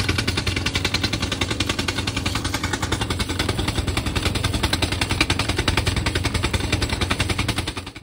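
Rock drill hammering down into bedrock: a rapid, even stream of percussive blows over a steady low drone. It stops abruptly at the very end.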